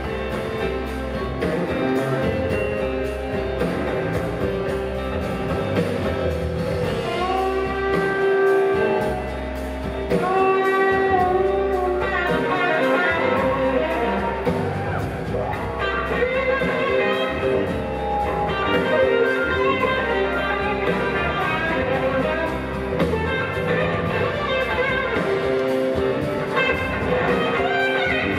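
Live blues-rock band playing an instrumental stretch, with an electric guitar taking the lead in bent, gliding notes over a steady drum beat.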